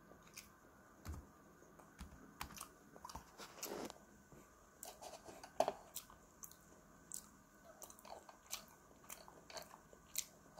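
A person chewing inari sushi (rice in fried tofu pouches) close to the microphone. The sound is faint, irregular wet mouth smacks and small clicks, with a few louder ones midway.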